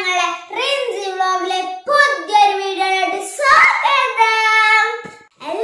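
A young girl singing solo in a high child's voice, with long held notes in several short phrases.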